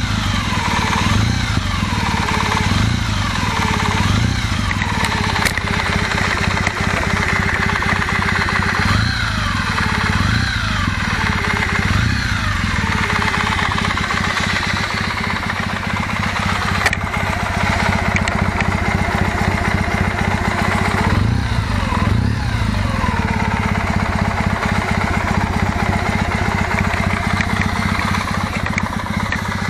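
Kawasaki W650's air-cooled parallel-twin engine idling and being revved briefly several times in three groups. A remaining knock from the camshaft drive gears, lessened by adjusting the gears, is what the owner puts down to worn parts.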